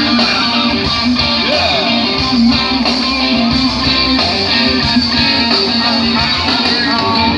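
Rock band playing live, loud and amplified, led by strummed electric guitar over bass and drums.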